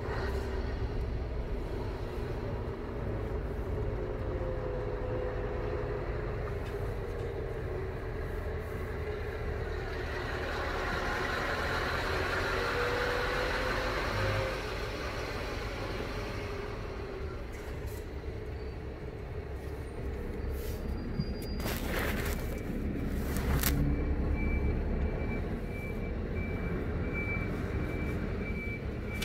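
Lorry engine running steadily with road noise, its pitch drifting up and down a little as the truck is driven. A few sharp clicks come about two-thirds of the way in, and a thin high tone sounds near the end.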